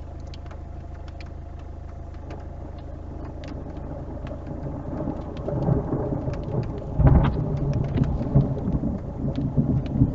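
Thunder rolling, rising from about halfway through and loudest around three quarters of the way in, heard from inside a parked car over a steady low hum, with scattered raindrop ticks on the car.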